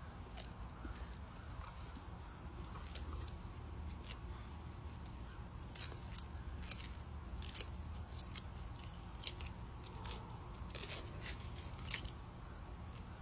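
Sulcata tortoises biting and chewing prickly pear cactus pads: irregular crisp crunching snaps, coming thicker in the second half.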